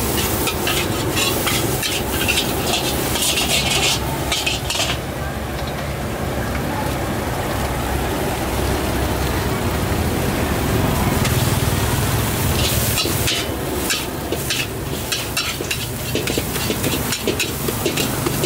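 A metal spatula scraping and clanking rapidly against a steel wok as fried rice with egg and greens is stir-fried, over steady sizzling. The scraping stops about five seconds in, leaving the sizzle, and starts again about twelve seconds in.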